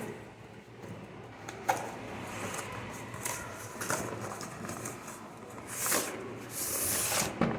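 Packaging being handled during an unboxing: a sharp click about two seconds in, then several bursts of rustling and scraping, the longest near the end, like cardboard and a plastic wrapper being pulled and slid.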